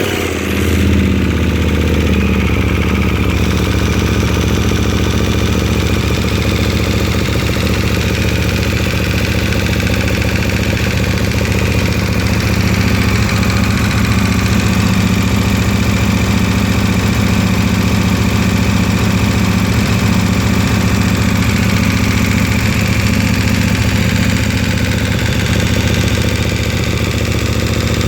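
KTM 1290's V-twin engine idling steadily just after a cold start, with a metallic mechanical noise. The owner says the noise has come with a cold engine since about 10,000 km and goes away once the oil reaches 70 °C.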